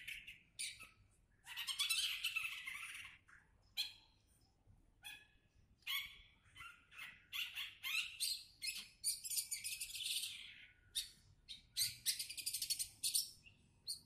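A small caged songbird singing in several bursts of quick, high chirps and trills, with short pauses between them.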